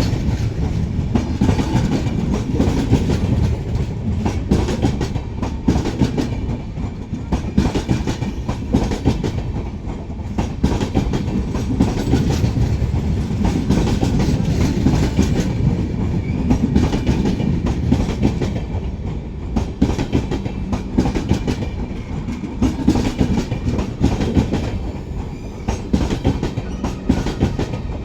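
Jammu Tawi–Tatanagar Superfast Express passenger coaches rolling on the track: a steady, loud rumble with the clickety-clack of wheels over rail joints.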